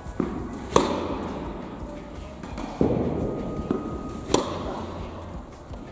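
Tennis balls struck with one-handed backhand slices: two sharp racket-on-ball pops about three and a half seconds apart, with softer thuds between them, echoing in a large indoor hall.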